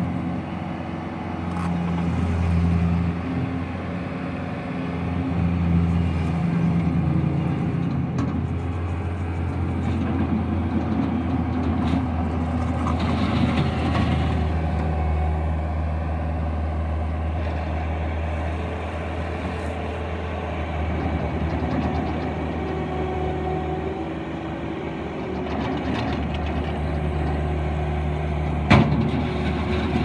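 Bobcat T190 tracked skid steer loader's diesel engine running, its revs rising and falling as it drives and works the bucket, with a stretch of gravel scraping about halfway through as the bucket pushes into a gravel pile. A single sharp knock near the end.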